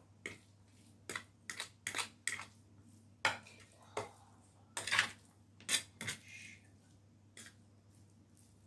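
A utensil scraping and clinking against a tray as mashed food is spooned and mixed on it: short, irregular scrapes, about fifteen of them, stopping near the end.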